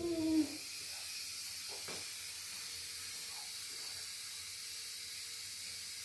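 Steady faint hiss of background room noise, with a short falling voice in the first half second and a single soft tap about two seconds in.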